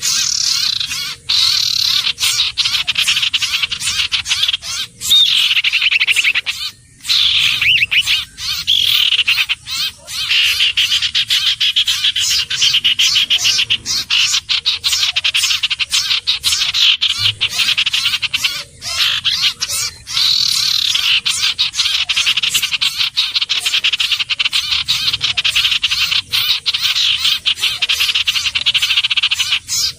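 Iora calling: long runs of rapid, high trills with swooping notes, broken by a few short gaps.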